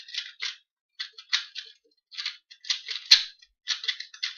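A 2x2 Rubik's cube's plastic layers being twisted quickly by hand during a scramble: runs of short clicking, rasping turns, several a second, broken by brief pauses.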